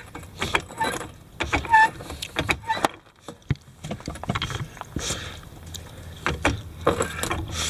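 A jack being pumped to lift a golf cart's frame: a run of uneven clicks and knocks from the jack handle and the lifting cart, with a couple of short squeaks near the start.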